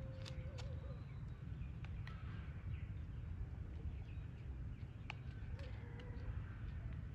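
Outdoor ambience with a steady low rumble and a few light clicks and rustles, and a faint held whistle-like call twice, at the start and about two-thirds of the way through.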